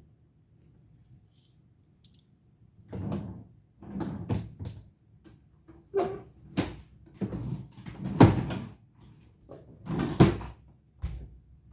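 Irregular knocks and clatters from handling a wristwatch and small tools on a hard work surface during a battery change. The sounds start about three seconds in, and the loudest knocks come past the middle.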